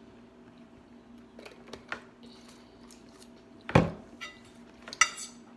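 Drinking from a juice bottle with small swallowing and mouth clicks, then a sharp knock about four seconds in as the bottle is set down on the table, followed a second later by a short clatter.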